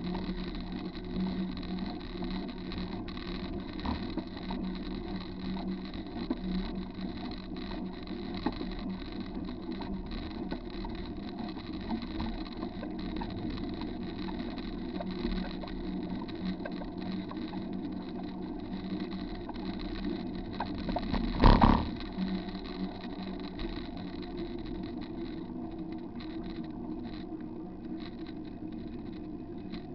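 Bicycle rolling along a wet paved trail, recorded from the bike: steady tyre and wind noise with small rattles, and one loud knock about two-thirds of the way through.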